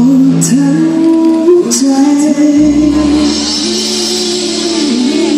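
Live band playing through a PA, with a voice carrying the melody in long held notes that step up and down in pitch, and a couple of cymbal crashes in the first two seconds.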